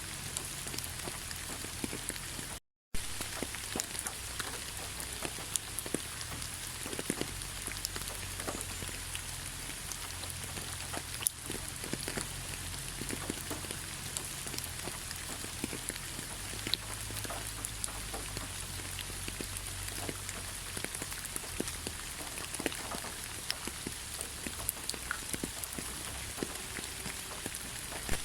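Steady rain falling in a forest: a continuous hiss with many separate drop hits. The sound cuts out completely for a moment about three seconds in.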